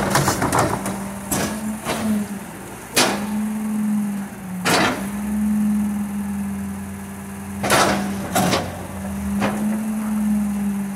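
McNeilus rear-loader garbage truck's hydraulics running with a steady whine while a garbage cart held upside down on the rear cart tipper is jerked against it, giving a string of sharp bangs every second or two to shake the trash loose into the hopper.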